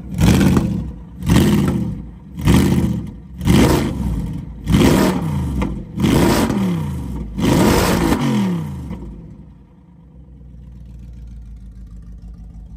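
Audi R8's 4.2-litre V8 through a full AWE Track exhaust, blipped seven times in quick free revs about a second apart, the last held a little longer. It then settles to a steady, quieter idle.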